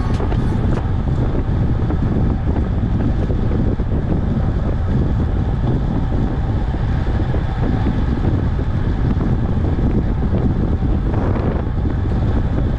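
Steady wind buffeting a moving camera's microphone while cycling at speed: a loud, even low rumble.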